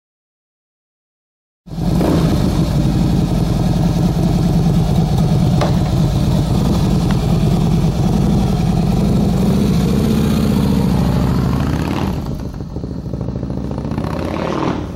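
Harley V-twin engine of a custom chopper motorcycle running steadily. It cuts in abruptly after about a second and a half of silence and gets quieter about twelve seconds in.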